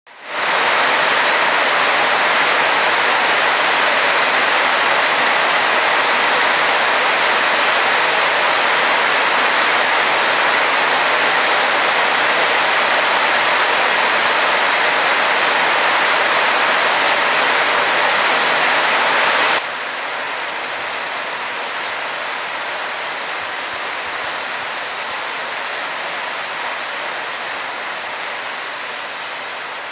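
Heavy rain falling steadily as a loud, even hiss. About two-thirds of the way through it drops suddenly to a softer level, then eases slowly toward the end.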